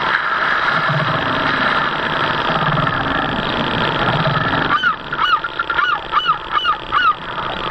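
A steady hum with slow low pulsing, then from about five seconds in, geese honking repeatedly, two or three short calls a second.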